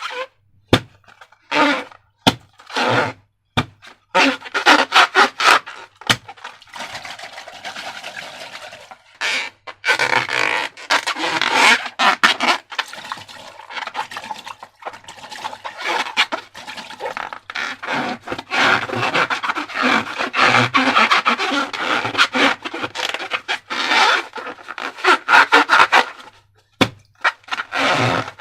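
Slime and balloons being handled and squeezed: rapid irregular crackling, squishing and rubbing in bursts, with short pauses.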